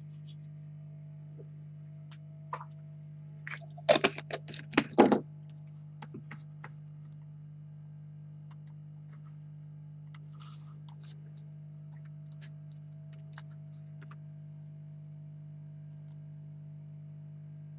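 A quick run of sharp clicks and taps about four seconds in, with a few light ticks later, over a steady low hum.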